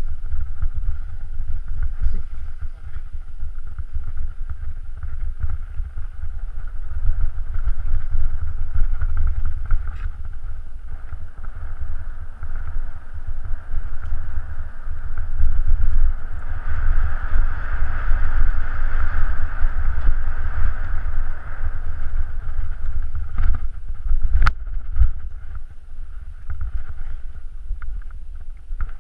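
Wind buffeting and rumble on a moving action camera's microphone as it travels down a rough forest trail. A rushing hiss swells in the middle, and scattered knocks and rattles come from the trail, with one sharp click near the end.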